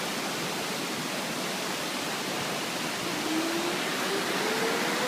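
Steady rush of fast-flowing floodwater. About three seconds in, an outdoor warning siren begins to wind up over it, its tone rising slowly.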